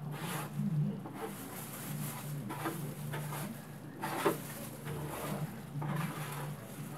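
Irregular scraping and rubbing from cleaning parts of a rusty, greasy gas grill, over a low steady hum, with a sharp knock about four seconds in.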